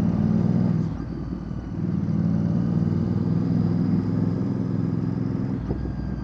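Royal Enfield Bear 650's 650 cc parallel-twin running through a Red Rooster Performance aftermarket exhaust while riding. It eases off about a second in, picks up again around two seconds in, and eases slightly near the end.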